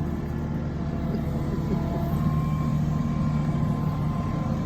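A motor vehicle or machine engine running steadily with a low, even drone.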